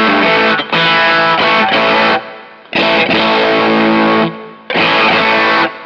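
Stratocaster on its bridge pickup played through a KingTone MiniFuzz v2 fuzz pedal: heavily fuzzed electric guitar chords in several short phrases, each cut off abruptly, with a very fizzy top end.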